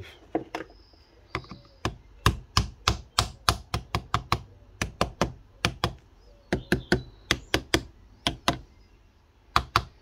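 A run of sharp, hard taps on a car battery, about three a second, with a couple of short pauses.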